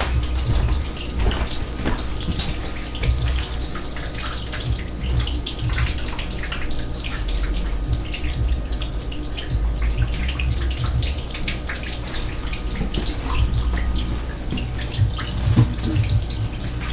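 Water running and splashing steadily from an overflowing kitchen sink, with many small drips and spatters.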